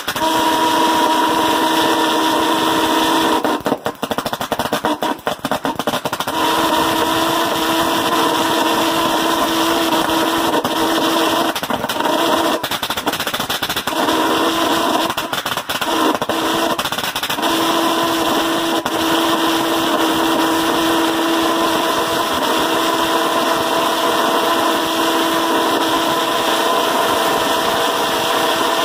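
Tesla-valve pulse jet engine running with a loud, steady buzzing note. It falters and sputters briefly about four seconds in, and twice more in the middle, before settling back into its steady note.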